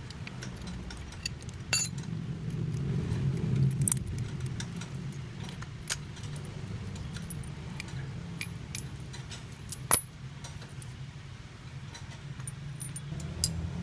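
Scattered light metallic clinks and taps of tools and parts being handled, over a steady low hum.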